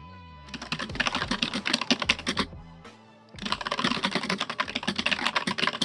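Fast computer-keyboard typing in two runs, with a pause of about a second between them.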